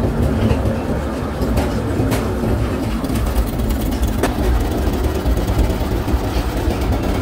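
Hydraulic press's pump running with a steady, loud rumble and a low hum, with a few faint clicks over it.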